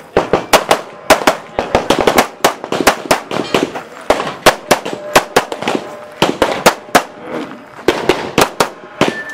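Para P14 pistol fired rapidly, dozens of sharp shots, many in quick pairs, with a couple of short pauses between strings.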